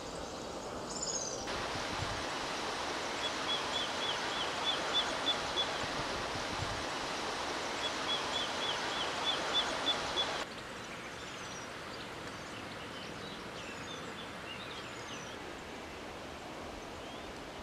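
River water rushing in a steady hiss, louder for the first two-thirds and dropping suddenly about ten seconds in. Over it a bird gives a quick run of repeated chirps, twice. Faint bird calls continue over the quieter outdoor background.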